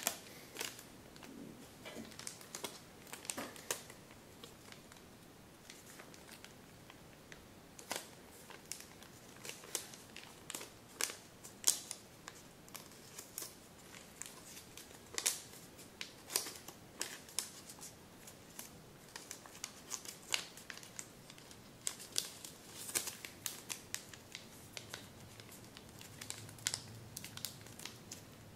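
Kami origami paper crinkling and crackling in the hands as a folded model is pinched and shaped, with irregular crisp crackles scattered throughout.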